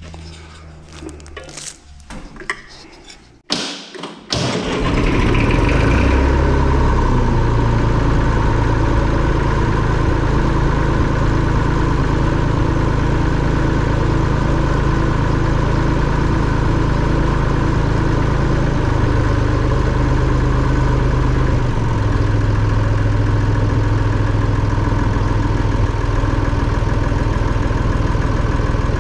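Massey Ferguson 35X's three-cylinder diesel engine, started about four seconds in after a few clicks and knocks, then idling steadily. This is its first run after an engine oil and filter change.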